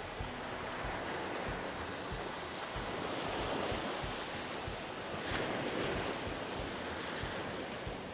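Small wind-driven waves breaking and washing up a sandy beach, with wind buffeting the microphone. The wash swells louder about five seconds in.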